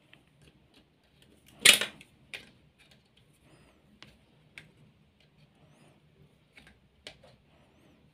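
Pliers and fingers working on the wiring inside a metal battery-charger case: scattered small clicks and taps, the loudest a sharp knock about a second and a half in.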